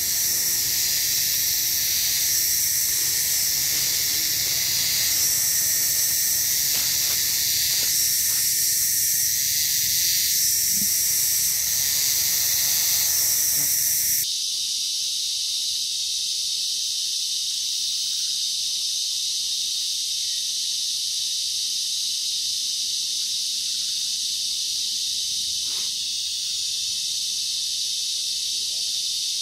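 Loud tropical forest insect chorus, a dense high-pitched buzzing hiss with a layer that swells every two to three seconds. About halfway through the sound changes abruptly: the lower hum drops away and a steadier, thinner high hiss remains.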